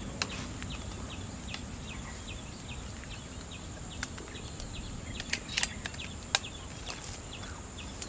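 Tropical forest ambience: a short high chirp repeating about twice a second over a steady high-pitched insect drone, with a few sharp clicks about five to six seconds in.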